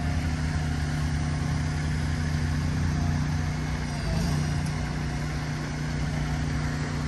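Heavy diesel semi-truck engine running steadily as the rig hauls a long steel bridge beam slowly through a turn, with a slight change in its sound about four seconds in.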